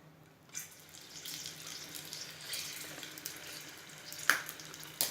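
Paneer-stuffed capsicums sizzling in a little hot oil in a non-stick pan as they are set in one by one. The sizzle starts about half a second in, with a sharp knock about four seconds in and another near the end.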